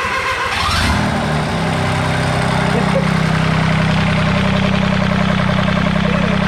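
Kubota G6200 lawn mower's diesel engine, with a K03 turbo bolted on, just after starting: it runs unevenly with a brief rise in pitch, then settles into a steady idle about a second and a half in.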